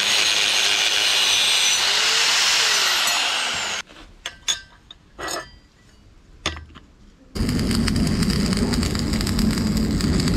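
A power tool cutting metal: a loud, harsh noise with a slowly falling whine that stops abruptly just under four seconds in. A few knocks and clicks of metal being handled follow. A loud, steady machine noise with a deeper rumble starts again about seven seconds in.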